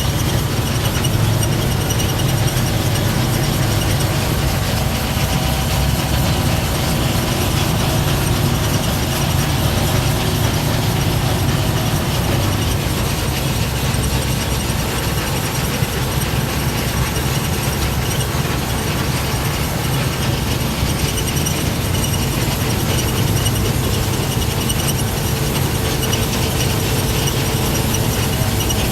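Harvest machinery running steadily: a low engine hum with a continuous mechanical clatter of gears and moving parts.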